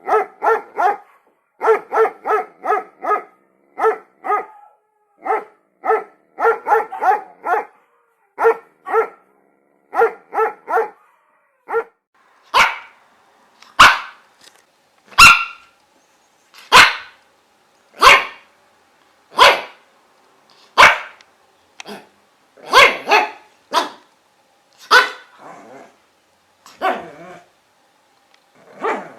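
Dogs barking. First come quick runs of two to four short barks. From about twelve seconds in, single, louder barks follow about every second and a half.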